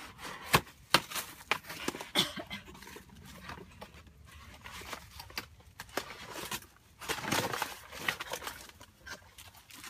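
Cardboard box being torn and pulled apart by hand: a string of sharp cardboard knocks and rustles, with a longer ripping sound about seven seconds in.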